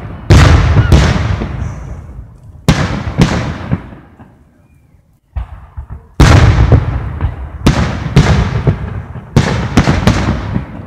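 Aerial firework shells bursting in a series of sharp booms, each trailing off slowly. Four come in the first few seconds, then a short lull with a few small pops about five seconds in, then a quick run of booms near the end.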